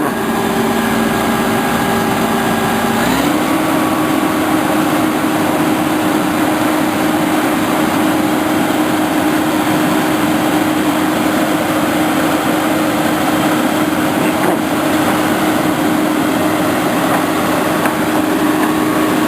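A machine's engine running steadily, stepping up to a higher speed about three seconds in and holding there.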